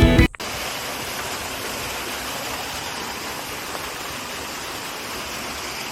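Steady rush of a waterfall, an even roar of falling water, after background music cuts off just at the start.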